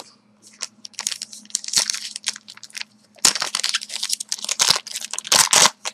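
Trading card pack wrappers being torn open and crumpled, with cards handled: irregular crinkling and rustling that thickens in the second half.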